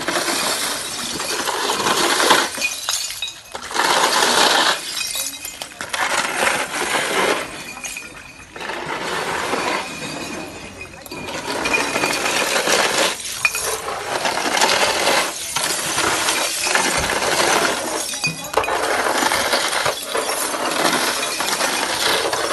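Many glass bottles clinking and broken glass crunching and scraping as spilled bottles and plastic bottle crates are picked up and moved, in busy stretches broken by a few short lulls.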